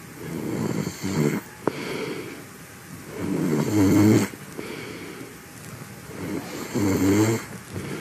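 A sleeping man snoring with his mouth closed: three snores on successive breaths, a weaker one about a second in and two louder ones at about the middle and near the end, with quieter breathing between them.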